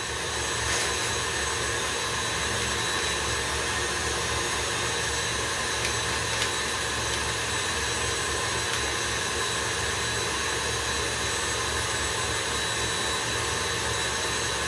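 Electric stand mixer running steadily at one speed, beating cake batter over a long mixing time, a continuous motor whir with a steady high whine.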